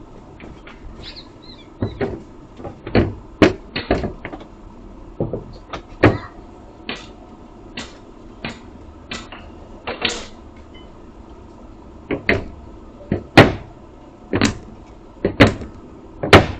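A series of irregular sharp knocks and clatters, about twenty of them, some much louder than others, like objects being handled or knocked about.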